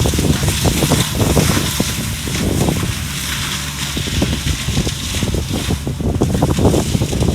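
Skid steer engine running steadily under load while its mulching drum grinds through brush and small trees, with many short, irregular cracks and snaps of wood being shredded.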